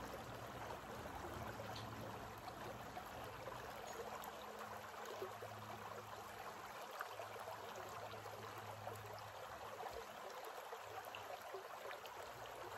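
Shallow creek running over rocks: a faint, steady rush of flowing water.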